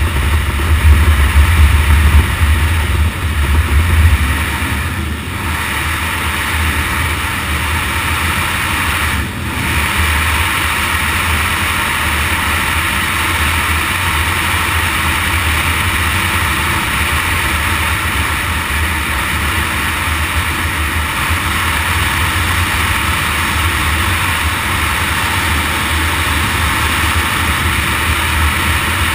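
Motorcycle engine running at road speed on a gravel road, mixed with wind and tyre noise. The low rumble is louder for the first few seconds and the sound dips briefly about five and nine seconds in, then stays steady.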